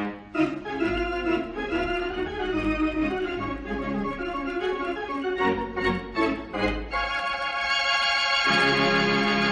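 Organ music playing a passage of quick changing notes, then settling into a held chord that fills out with a lower note near the end.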